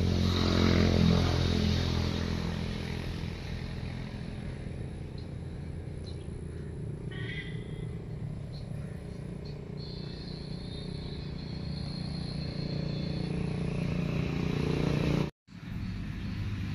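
A motor vehicle engine running steadily, louder near the start and again toward the end. The sound cuts out for a moment shortly before the end.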